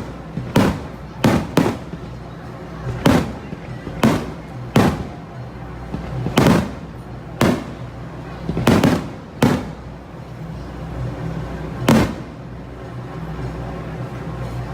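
Fireworks display shells bursting: about a dozen loud bangs at irregular intervals, some coming close together in pairs, then a lull near the end.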